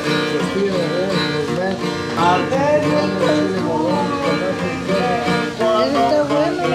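Acoustic guitar played live, a continuous run of plucked and strummed chords.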